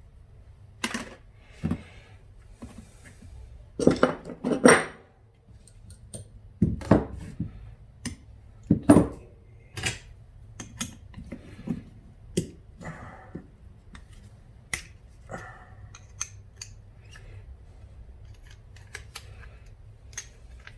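Small metal carburetor parts and tools clicking and clinking against each other and the bench as a mower carburetor is taken apart. The knocks are irregular, with the loudest clusters about four to five seconds in and around nine seconds.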